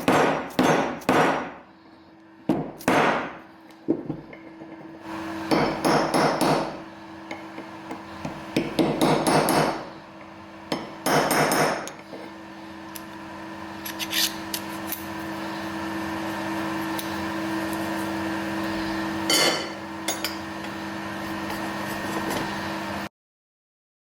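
Hammer striking metal in quick bursts of several blows, with pauses between the bursts, over a steady machine hum that grows louder. Everything cuts off abruptly about a second before the end.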